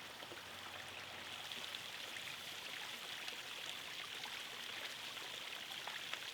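Steady background hiss with faint scattered crackles, even throughout, with no speech or tones.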